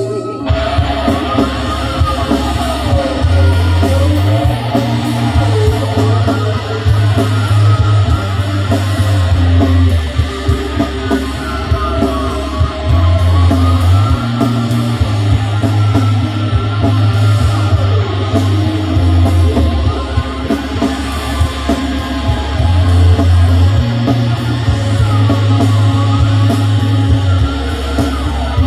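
Live rock band playing loudly: electric guitars with lines that slide up and down, over long steady bass guitar notes and drums.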